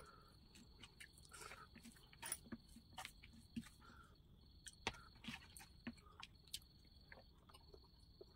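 Quiet hand-eating sounds: irregular soft clicks of chewing and of fingers mixing rice on a plate, over a faint steady high tone.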